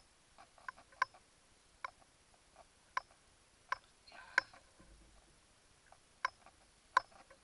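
Scattered sharp clicks and ticks, one or two a second at irregular spacing, from the spinning reel and rod tackle as a hooked fish is reeled in, with a short cluster of clicks a little past the middle.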